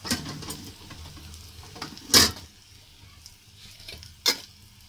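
Onion-tomato masala frying in oil in a kadhai, sizzling faintly and steadily. Three short knocks or scrapes of a wooden spoon against the pan, the loudest about two seconds in.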